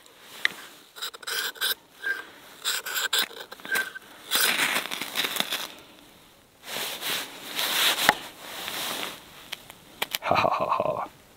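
A ferrocerium rod struck with the sharpened spine of a bushcraft knife: a run of short rasping scrapes, then two longer harsh scrapes about four and seven seconds in, throwing sparks into a pile of wood shavings. A short louder sound comes near the end.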